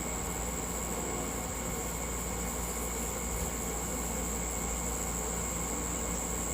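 Steady background hum and hiss with a constant high-pitched whine, unchanging throughout, with no distinct events.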